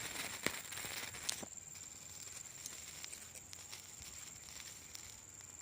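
Night-time outdoor ambience: an insect keeps up one steady high-pitched tone over a soft hiss of wind, with a few faint clicks in the first second or so.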